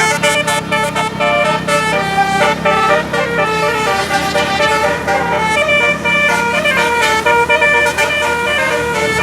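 Bus telolet basuri musical air horns playing a fast, continuous melody of short changing notes, over a low steady hum.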